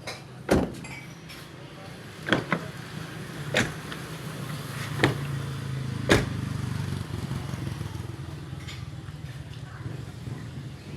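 About six sharp clicks and knocks, spread over the first six seconds, from a car's doors and locks being worked, over a low steady hum that builds from about three seconds in.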